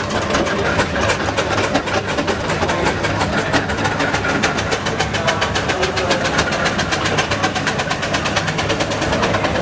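Engine running with a rapid, even beat of sharp knocks, holding steady throughout.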